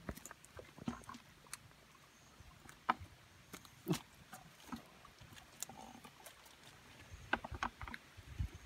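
Irregular sharp knocks and wet slaps as catfish are shaken out of a woven bamboo trap into a plastic bucket and flop against the bucket and each other. The two strongest knocks come about three and four seconds in, and a quicker run of taps comes near the end.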